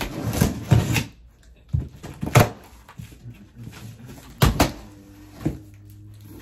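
Large cardboard box being cut open and handled: a box cutter scraping along the seam for about a second, then sharp knocks of cardboard, twice close together near the middle.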